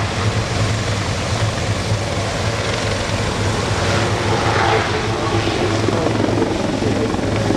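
Royal Navy Westland Lynx HMA.8 helicopter passing low overhead: steady rotor and twin-turbine engine noise with a constant low beat.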